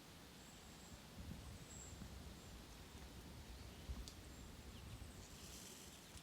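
Faint outdoor ambience: a low wind rumble with several brief, faint high-pitched chirps and a single sharp click about four seconds in.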